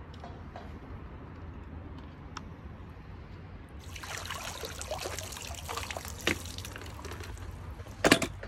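A pool skimmer net is lifted out of the water about halfway through, with splashing and water pouring and dripping off its mesh. Near the end it is set down on the pool's edge with one loud knock.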